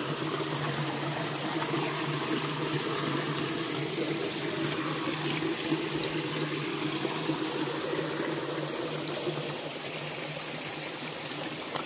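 River water running and trickling steadily, with a faint low steady hum underneath.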